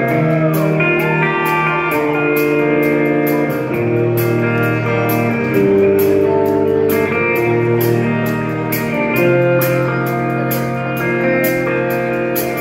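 Live rock band playing an instrumental passage: electric guitar over bass guitar and drums, with a steady beat and no vocals.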